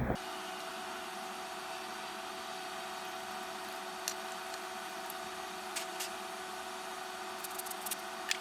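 Steady background hum and hiss with a faint constant tone, and a few light clicks and taps of small plastic model parts being handled.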